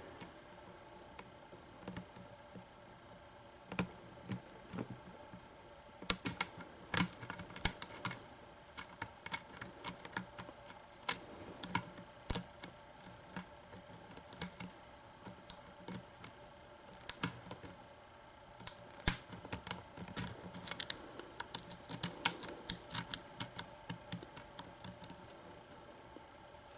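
Small, sharp metal clicks of a lock pick working the pin tumblers of a Defiant doorknob's lock cylinder, irregular and sparse at first, then coming in quick clusters from about six seconds in. The lock is not yet picked open.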